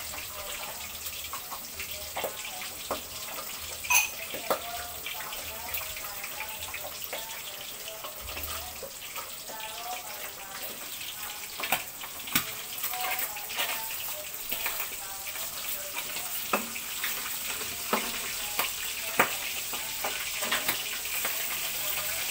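Catfish pieces frying in hot oil in a pan: a steady sizzle with scattered sharp pops and clicks, growing gradually louder toward the end.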